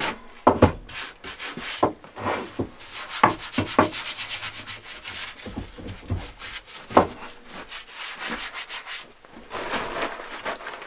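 Repeated rubbing and scraping strokes on wood by hand, with a few sharp knocks in between and a quieter stretch shortly before the end.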